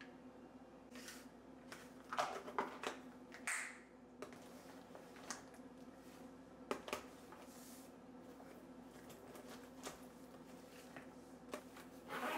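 Plastic lunch containers clicking and knocking as they are handled and set down on a countertop: a cluster of clicks in the first few seconds, then single taps spaced out. Near the end a zipper on a soft insulated lunch bag starts to run. A steady faint hum sits underneath.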